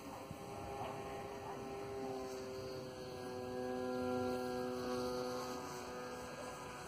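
A Zagi 98 cm RC flying wing's motor and propeller in flight, a steady hum of several held tones. It grows louder as the wing passes close overhead about four seconds in, then fades as it flies off.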